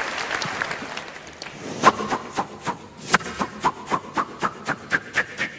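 Audience applause fading out, then a sharp knock about two seconds in and another about a second later, followed by a steady clicking rhythm of about four beats a second.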